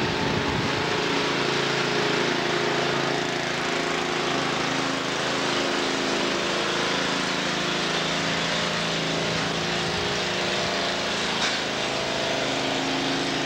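An engine running steadily at an even pitch under a constant hiss, cutting off suddenly near the end.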